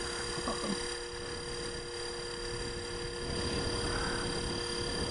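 Blade 330X electric RC helicopter hovering low, its brushless motor and rotors giving a steady whine of a few even tones over a low rumble.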